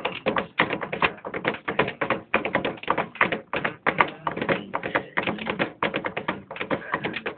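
Two people drumming fast, intricate rhythms with their fingertips on a wooden table, a dense stream of taps and knocks.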